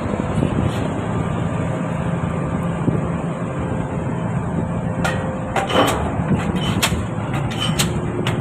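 A crawler piling rig's engine runs steadily. About five seconds in, a run of sharp strikes begins, roughly two a second, from a DD55 diesel pile hammer driving a spun concrete pile.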